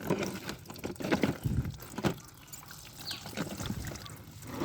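Light, scattered knocks and clicks of small plastic toy vehicles being handled, with faint water sounds.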